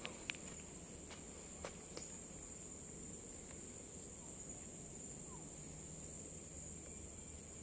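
A steady, high-pitched chorus of forest insects. A few faint footsteps on the trail fall in the first two seconds.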